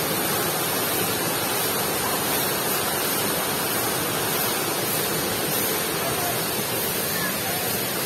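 Steady rush of a waterfall pouring into a rock pool.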